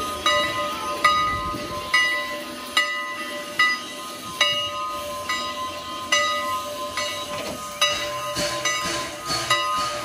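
Steam locomotive bell of Canadian National #89, a 2-6-0 Mogul, ringing steadily with one strike about every 0.8 seconds, each ring lingering into the next. A hiss of steam runs underneath.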